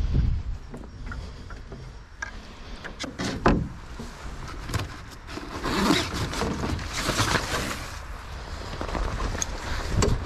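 Canoe and paddle on the water: paddle strokes swishing and splashing, with a few knocks against the hull, over wind rumbling on the microphone.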